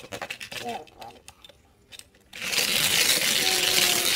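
Die-cast toy engine rolling down a plastic spiral track: a dense continuous clatter starts suddenly a little over halfway in. Before it come a few light clicks.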